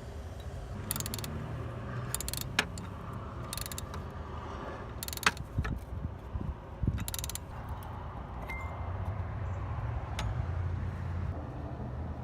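Metal tools clinking and rattling in a series of short, irregular clicks and jangles over a low, steady rumble.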